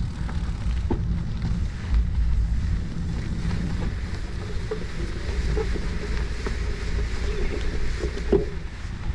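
Wind buffeting the front-mounted action camera's microphone, mixed with the tyre and road rumble of a gravel bike being ridden. A steady low noise, with a few faint ticks and, in the second half, faint wavering squeaks.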